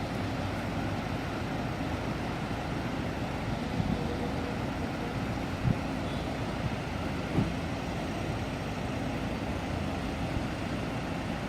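Steady roar of a large waterfall, with a few brief low thumps about four, six and seven and a half seconds in.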